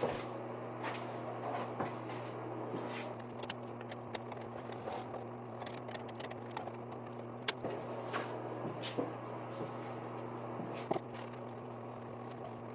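A steady low hum with scattered light clicks and taps of small parts being handled, two sharper clicks about halfway through and near the end.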